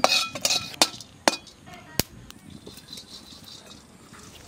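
Whole garam masala spices (bay leaf, cardamom, cinnamon bark) dropped into a dry aluminium kadai: a handful of light clinks and ticks in the first two seconds, some with a brief metallic ring.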